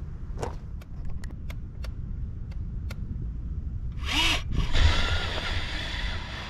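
A small motor whirring over a steady low rumble, with a string of light clicks in the first three seconds and a louder rush of noise with a brief rising-and-falling whine about four seconds in.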